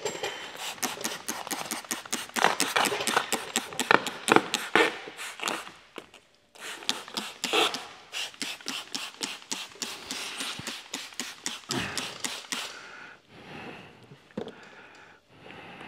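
Hand trigger spray bottle spraying slip solution onto the bumper and under the paint protection film, in rapid repeated squeezes of several a second. The squeezing breaks off about 6 seconds in, runs again, and thins out near the end.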